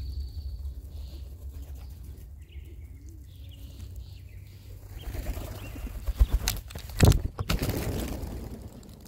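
A flock of band-tailed pigeons takes off together: a loud clatter of many wings starts about five seconds in, with a few sharp thumps in the middle of it.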